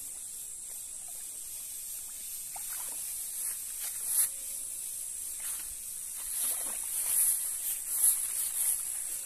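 High-pitched insect chorus humming steadily and swelling into louder pulses several times, with a few faint brief rustles.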